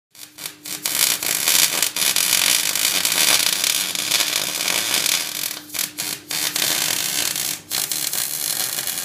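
Wire-feed welding arc crackling and hissing steadily as a bead is laid on a steel frame, with a steady low hum underneath. The arc breaks off briefly a few times, between about half a second and a second each.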